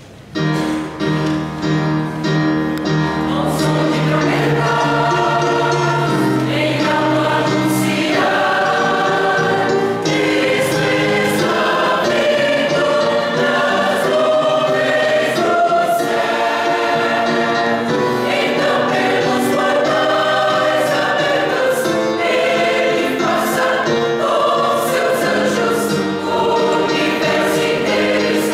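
Church choir singing a gospel hymn in parts, starting suddenly about half a second in and holding full voice throughout.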